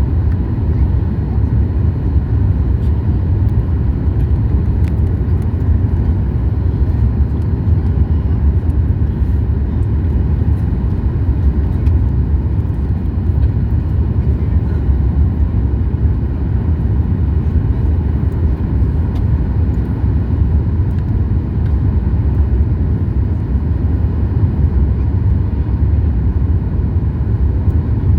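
Steady low rumble of cabin noise inside a Boeing 737 MAX 8 airliner, the engines and airflow heard through the fuselage, unchanging throughout.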